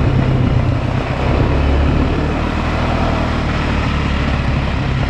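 ATV engine running steadily under load as the quad ploughs through deep snow.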